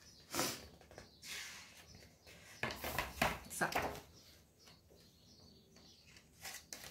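Paper pages of a picture book being handled and turned, rustling in a few short bursts, the longest about three to four seconds in.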